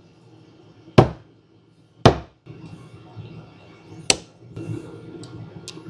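Three sharp metal taps, about a second in, two seconds in and four seconds in, as a C-clip is worked onto the shaft of a Bosch starter motor, with faint handling clicks between and near the end.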